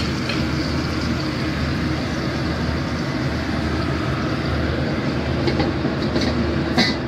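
Fish frying in its own fat in a covered dry pan, with a steady sizzle over a low hum. A few sharp crackles come near the end, the last one the loudest.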